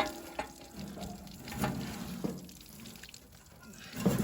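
Old coolant, by now only rusty water, pouring and dripping out of the Hanomag Granit 501-S tractor's opened radiator hose into a wheelbarrow, with a few sharp knocks along the way.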